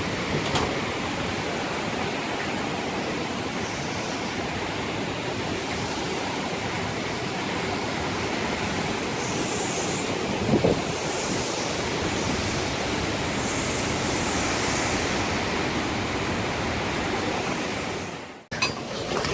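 Steady rush of wind from a hurricane's outer bands, with wind buffeting the microphone. It cuts off abruptly near the end.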